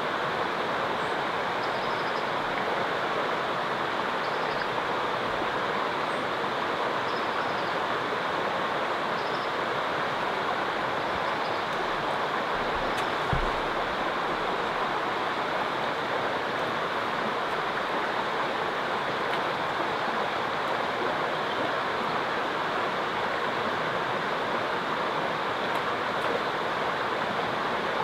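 Steady rush of running river water, even throughout, with one short low thump about halfway through.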